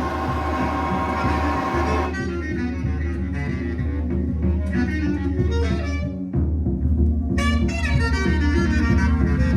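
Music with a steady low bass line under a lead instrument playing separate pitched notes; about two seconds in, a dense hazy passage with held tones gives way to the clearer notes.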